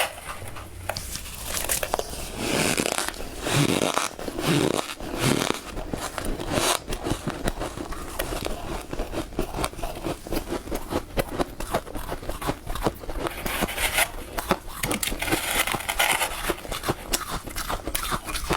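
Powdery freezer frost crunching close to the microphone in a dense, rapid crackle of many small cracks.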